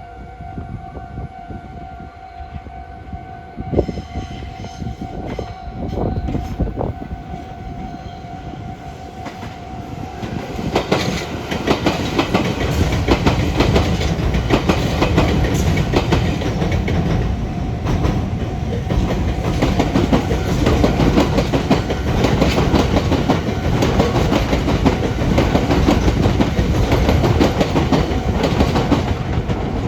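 Meitetsu electric train running over the Biwajima junction's points, its wheels clattering over the rail joints. A steady tone and scattered clicks come first; about ten seconds in the train noise swells into loud, continuous clatter.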